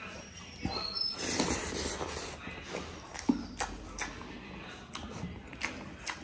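Close-up chewing and lip-smacking while eating mutton and rice: short, wet clicks at irregular intervals, with a denser stretch about a second in.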